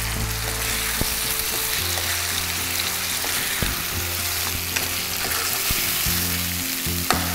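Chicken pieces sizzling steadily as they fry in hot oil with onions in a pan, turned with a spatula that gives a few light taps.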